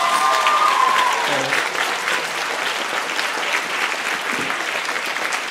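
A crowd applauding steadily, with a few voices calling out over the clapping in the first second.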